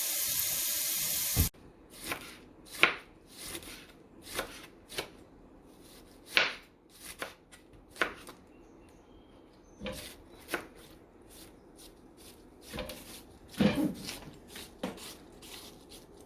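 A kitchen tap runs and is shut off suddenly about a second and a half in. Then comes an irregular series of sharp knife strokes on a cutting board, about one every half second to a second, as vegetables are chopped.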